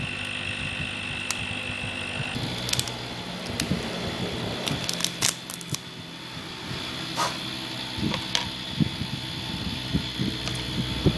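Hot air rework tool blowing with a steady high whine whose pitch shifts a little over two seconds in, under scattered clicks and scraping of hand tools working on a phone being taken apart for an LCD replacement.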